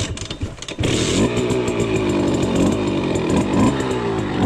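Simson moped's single-cylinder two-stroke engine running under way, its note rising and dipping in pitch a few times as it pulls along.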